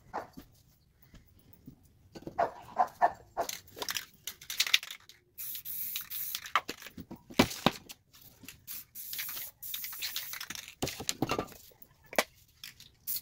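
Aerosol spray-paint can spraying in two long hissing bursts, about five and nine seconds in, with clicks and knocks in between.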